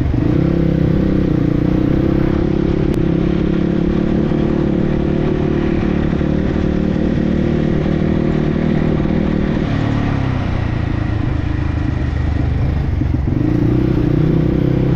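Dirt bike engine running while being ridden: a steady note that drops for a few seconds about ten seconds in, then picks up again.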